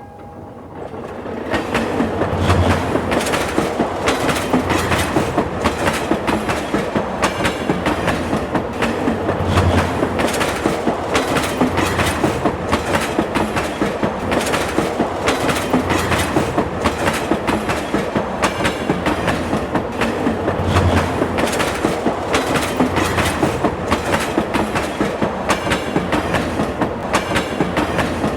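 Train running along the track, its wheels clattering over the rail joints in a fast, even clickety-clack. It builds up over the first two seconds and then holds steady, with a low thud every several seconds.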